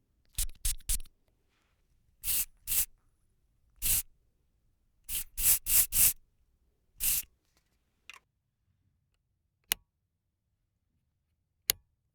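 Hand spray bottle squirting water in short hissing bursts, in quick runs of two to four squirts, followed by a few brief sharp clicks near the end.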